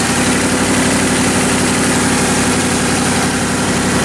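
Old Ford truck's engine idling steadily, just after being started.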